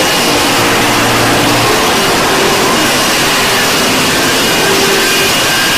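F-35B STOVL jet in a vertical-landing hover, its F135 engine and lift fan making a loud, steady jet noise with a faint high whine.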